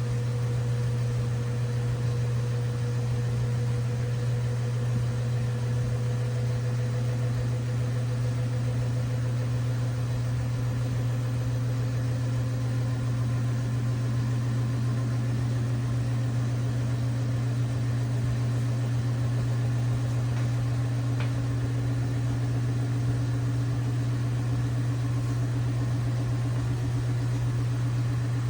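LG WT7600HVA top-load washing machine running: a steady low hum with a fainter whine that slowly rises in pitch.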